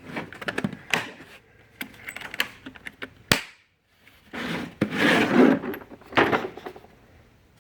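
Socket sets and their plastic cases being handled: a string of clicks, knocks and metal rattles, with a denser burst of rattling about five seconds in.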